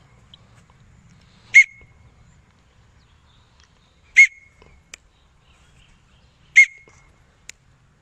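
A person whistling three short, sharp, loud whistles evenly spaced about two and a half seconds apart, a recall whistle for a free-flying pet budgie.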